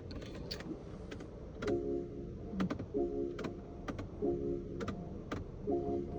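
A low electronic chime of several steady tones, repeating about every second and a half from near two seconds in, with sharp taps and clicks in between.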